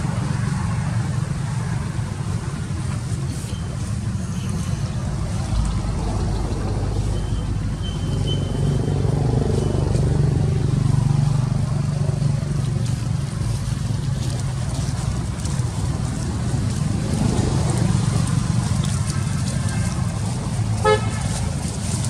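A steady low rumble of motor traffic, with a short horn toot near the end.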